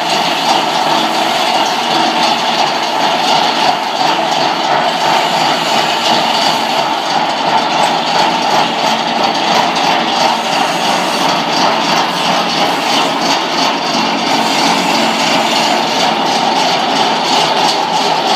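Vibrating feeder driven by twin vibration motors, running steadily with its steel trough empty: a loud, even mechanical hum.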